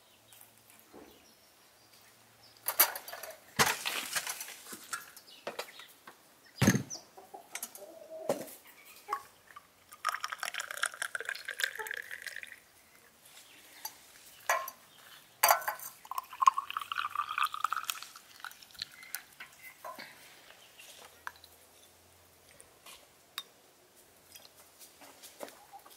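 Clinks of dishes and cutlery, then hot water running from a samovar tap into a glass tea cup, its pitch rising as the glass fills; a second pour with the same rising pitch follows a few seconds later. Hens cluck now and then.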